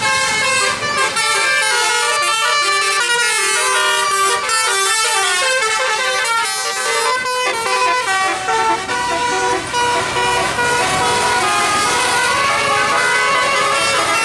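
Basuri telolet musical bus horn playing a fast melody of short horn notes, one after another with no pause.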